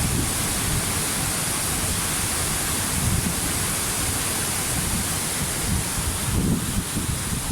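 Waterfall: a steady, dense rush of falling water, with a low churning rumble beneath a bright hiss.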